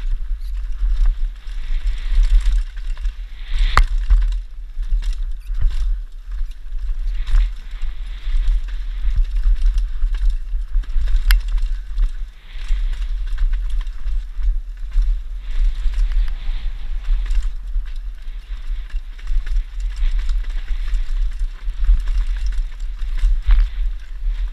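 Santa Cruz V10CC downhill mountain bike ridden fast down a dry, dusty dirt trail. Tyres hiss and crunch over loose dirt, and the bike clatters with frequent sharp clicks and rattles. A steady low wind rumble on the camera's microphone runs underneath.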